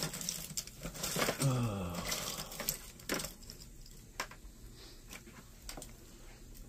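Small clicks and cracks of plastic and circuit-board parts being trimmed, pried and handled, denser in the first two seconds, with a brief low mutter about a second and a half in.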